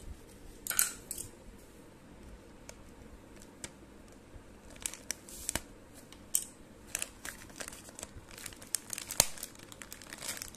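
Plastic courier mailer bag crinkling and crackling under fingers in scattered short bursts, busier in the second half, as the staple pinned through its label is worked at.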